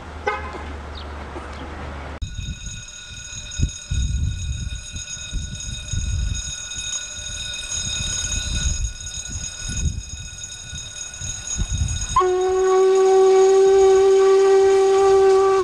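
Steam locomotive approaching at the head of a passenger train, its exhaust heard as low, uneven chuffing beats. About twelve seconds in it sounds one long, steady whistle blast, the loudest sound here.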